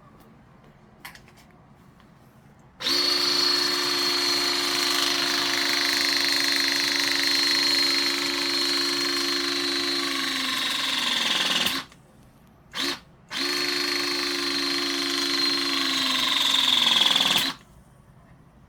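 Klauke 12042CFM cordless power tool's motor running in two runs of several seconds with a short blip between them. Near the end of each run its whine drops in pitch as the motor comes under load, and then it stops.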